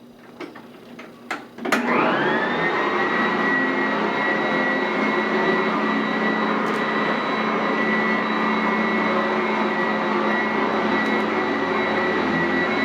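Sanitaire SC899F commercial upright vacuum cleaner switched on after a few clicks: its motor spins up with a quick rising whine and then runs steadily with a high whine over the rush of air.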